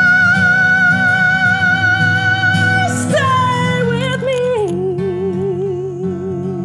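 Female voice singing over guitar: a long high note held for about three seconds, then sliding down to lower notes and ending on a lower note sung with vibrato.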